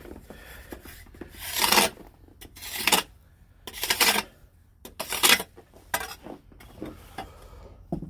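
Snow shovel scraping and pushing snow in about four strong strokes roughly a second apart, followed by lighter scrapes near the end.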